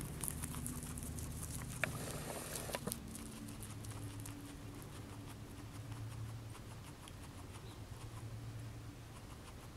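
A guinea pig chewing curly kale leaves, with many quick, crisp little crunches that are busiest in the first few seconds.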